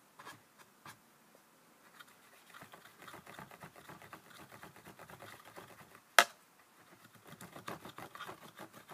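Rapid small clicks and scratching of makeup products and tools being handled, with one sharp, loud click about six seconds in.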